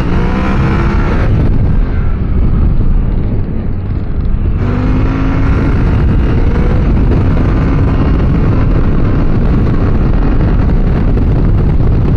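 Yamaha Ténéré 700 parallel-twin engine pulling the motorcycle along under way, its pitch rising as it gathers speed and dropping back at gear changes, over a loud, steady rush of wind and road noise.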